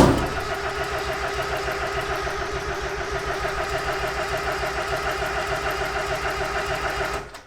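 Mazda Miata 1.8 four-cylinder engine cranking on its starter with an even, rhythmic pulse, turning over without firing or catching, then stopping abruptly near the end. This is a crank-no-start with fuel and spark present, which the owners suspect is a cam sensor problem.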